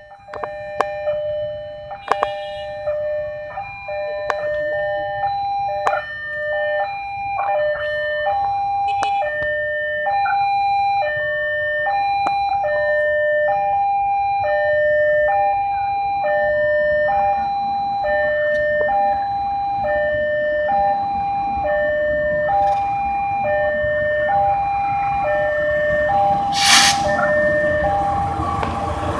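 Railway level-crossing warning alarm sounding a steady two-tone signal, alternating about once a second. In the second half the rumble of an approaching diesel locomotive hauling a container train grows louder, and a short sharp sound comes near the end.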